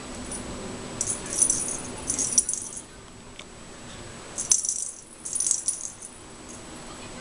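A hanging ball cat toy rattling as a kitten bats it with its paws, in four short bursts.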